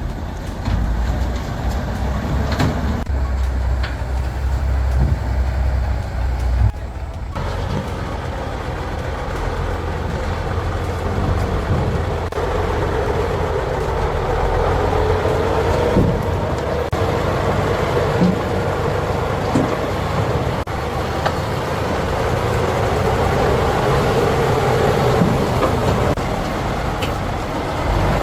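Heavy logging truck's engine running, with an abrupt change in the sound about seven seconds in and a steady hum that grows through the second half.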